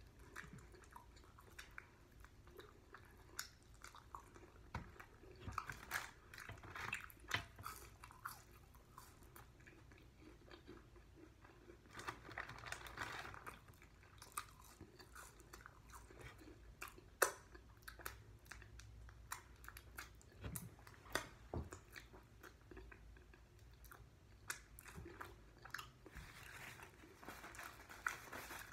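Quiet close-up chewing and biting into hot chicken wings: wet mouth sounds with scattered crunches and sharp lip and tongue clicks.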